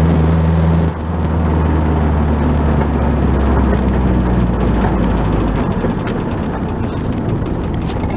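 Ford Sierra 2.3 four-cylinder diesel engine heard from inside the cabin while driving, with a steady drone. About a second in the throttle is lifted and the level drops, and the engine note then falls away as the car slows. The owner fears this engine sound means a badly worn engine.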